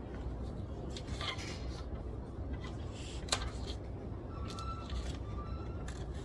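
Quiet library ambience: a steady low hum with a few small taps and clicks scattered through it, and a short, faint thin squeak near the middle.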